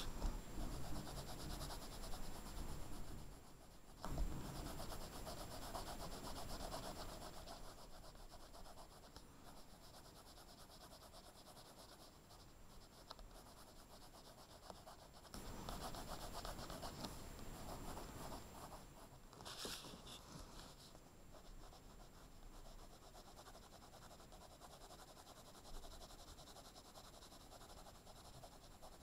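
Blue coloured pencil shading on paper: a fine, rapid scratching of back-and-forth strokes, louder in the first few seconds and again around the middle, fainter in between. A single sharp tap about four seconds in.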